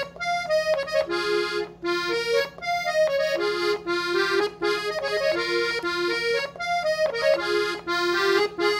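Hohner Concerto II piano accordion playing a melody of short notes on the treble keys, in quick phrases with brief gaps between them.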